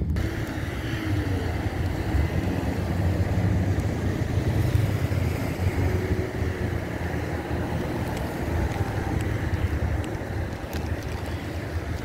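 Steady wind rumble on the microphone over the noise of street traffic, with no distinct events standing out.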